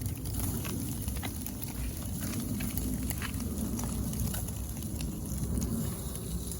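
Turkey bacon sizzling in a small stainless steel pan, with scattered sharp pops and crackles over a steady low rumble, on a penny stove burning too hot.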